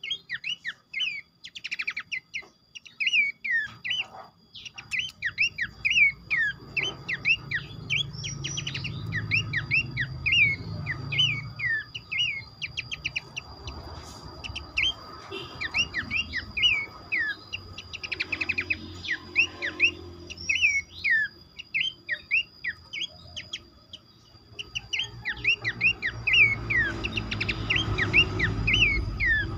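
Several pelanduk semak (Horsfield's babblers) calling together: a dense stream of short whistled notes, many sliding down in pitch, broken by quick chattering runs. A steady high tone and a low rumble sit underneath.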